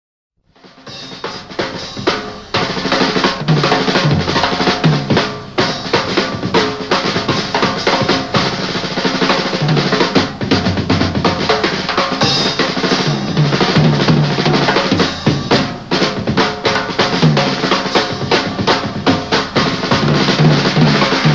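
Jazz drum kit played in a fast, dense solo on snare, bass drum and cymbals. It comes in about half a second in and builds to full loudness within a few seconds.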